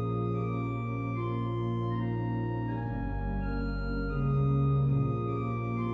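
Church organ playing a hymn in held chords, with pedal bass notes moving underneath; it swells a little louder about four seconds in.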